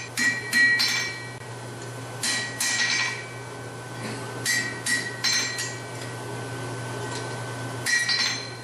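Hand hammer striking red-hot bar stock on a steel anvil in short groups of three or four blows with pauses between, each blow giving a bright metallic ring. A steady low hum runs underneath.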